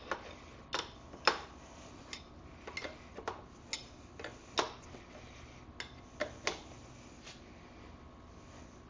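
Hand tools clicking and tapping against the rear wheel's axle nut as it is being loosened: about fifteen sharp, irregularly spaced clicks over the first seven seconds, then only a faint hum.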